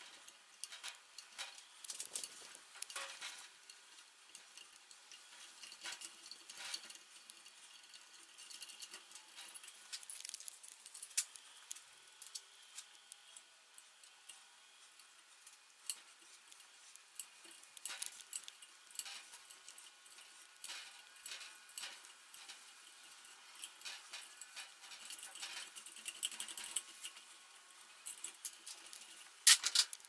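Hand tap cutting an 8 mm thread in a steel plate held in a bench vise: irregular light metallic clicks and scraping ticks as the tap wrench is turned, with a louder clatter of metal near the end.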